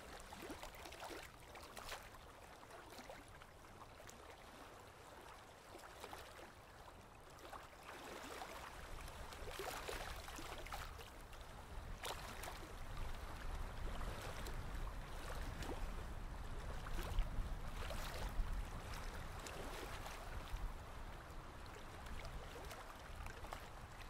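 Oil pastel sticks scratching and rubbing across paper in many short, uneven strokes, with a low rumble underneath that grows stronger in the second half.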